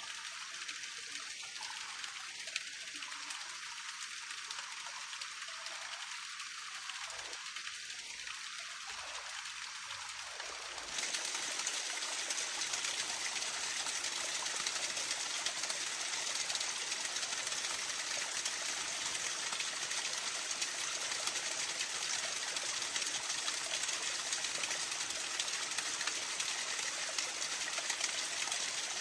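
Steady rush of flowing water, with no tone or rhythm in it. About eleven seconds in it jumps abruptly louder and fuller.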